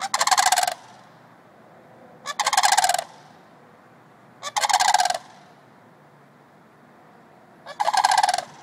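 Sandhill crane calling: four loud, rolling, rattling calls, each a little under a second long with a short note just before it and sinking in pitch at its end, coming about every two seconds.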